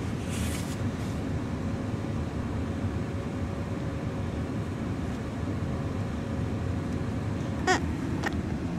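Car cabin noise while driving: a steady low rumble of engine and tyres, with a brief voice sound near the end.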